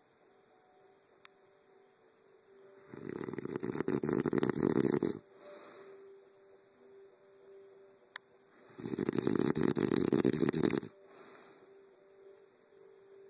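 A man snoring loudly in his sleep: two long, rough, rattling snores about six seconds apart, each lasting around two seconds, with quiet breathing between them.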